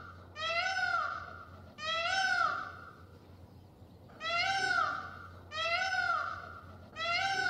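An animal calling over and over: about six calls, each under a second and rising then falling in pitch, with a longer gap near the middle.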